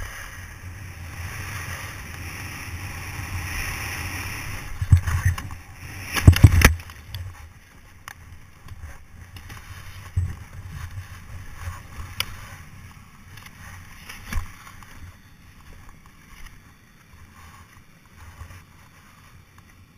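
Skis running over packed snow with wind rushing over the camera microphone, then a thump about five seconds in and a burst of heavy thuds as the skier lands in an inflatable air bag. Scattered rustles and knocks against the bag's fabric follow.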